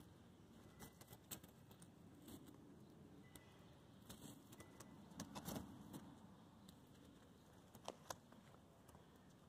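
Near silence: faint background tone with a scatter of soft, short clicks and ticks, a small cluster about halfway through and two quick ticks near the end.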